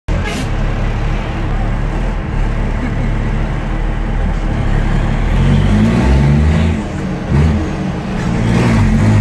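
MAN Dakar race truck's diesel engine heard from inside the cab, rumbling at a steady low pitch, then revving up about five seconds in as the truck pulls away. Its pitch rises several times over as it accelerates.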